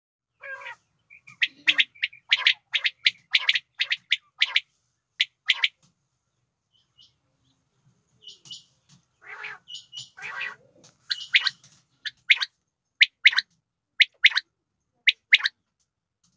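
Female common quail calling: a series of short, sharp notes, two or three a second, in two runs with a pause of about two seconds between them.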